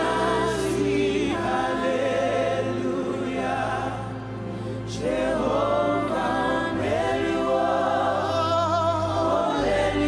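Live gospel worship singing: many voices of a congregation and worship leader singing together, with wavering held notes, over sustained low accompaniment chords that shift every few seconds.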